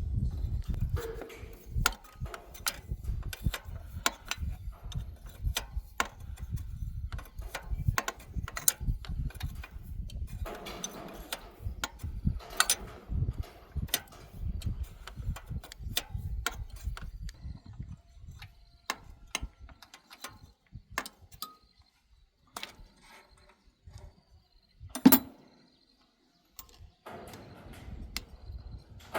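Hand tools working on metal machine parts: a run of irregular clicks, clinks and knocks over a low rumble. About three-quarters of the way through there is one loud, sharp knock.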